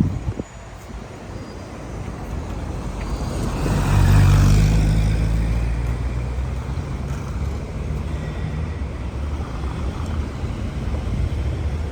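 A motor vehicle drives past close by in city street traffic. It grows louder to a peak about four seconds in, then fades, and a low engine hum lingers for a few seconds.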